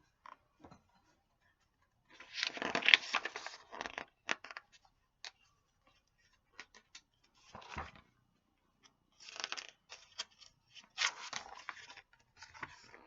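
Paper rustling and crinkling in several short bursts with small clicks between: the pages of a picture book being handled and turned.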